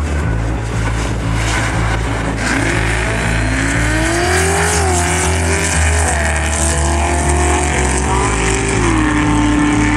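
Drag cars launching and accelerating hard down the strip: the engine note climbs, drops at a gear change about five seconds in, climbs again and drops at another shift near the end.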